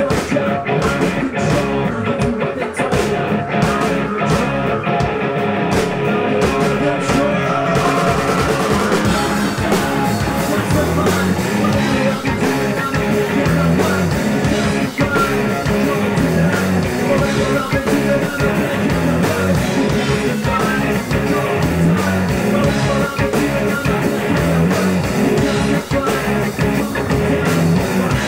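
Rock band playing live: electric guitars, bass guitar and drum kit. The sound fills out with brighter cymbals about eight seconds in.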